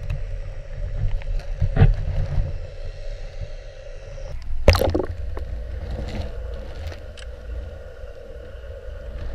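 Underwater sound in a canal: a continuous low, muffled rumble with a faint steady hum. Two sharp knocks break it, the louder about halfway through, with a few lighter ticks.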